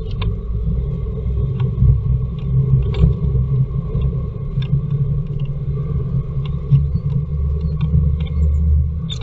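Blue tit moving about inside a wooden nest box: a low rumble of its body and feet against the wood, with scattered light clicks of claws and beak on the boards, picked up close by the box's microphone.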